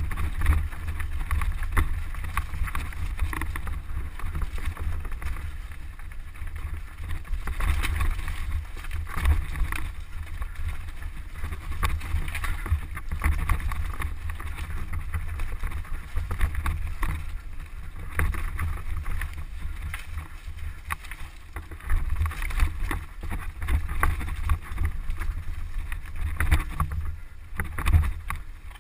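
Mountain bike descending rocky singletrack: wind rumbling on the camera's microphone, with constant rattling and knocking from the tyres and bike over loose rock. The noise dies down near the end as the bike slows.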